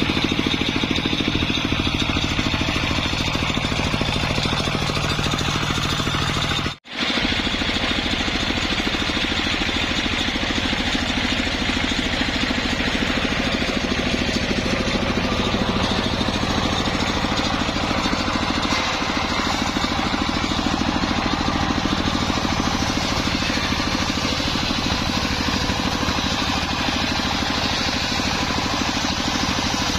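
A circular saw mill running steadily, with a brief break in the sound about a quarter of the way in.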